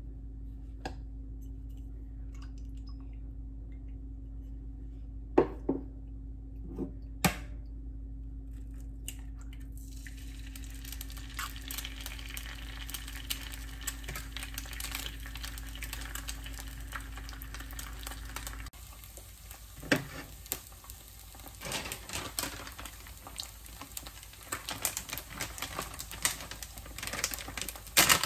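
An egg frying in a nonstick pan: a dense sizzle with crackling and popping starts about ten seconds in and goes on to the end. Before it there is a steady low hum with a few sharp knocks, and the hum stops about two-thirds of the way through.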